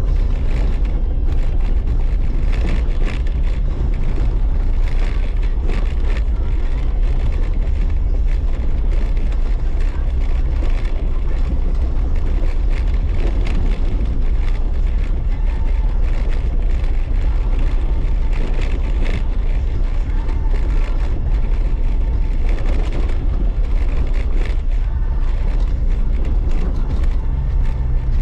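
Jeep Wrangler Unlimited driving along a dirt trail: a steady low rumble with many small knocks and rattles.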